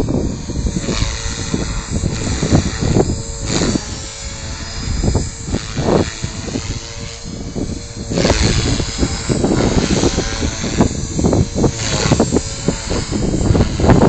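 Strong wind buffeting the microphone in repeated gusts, over the steady whine of an Align T-Rex 450 electric RC helicopter's motor and rotors as it flies aerobatics.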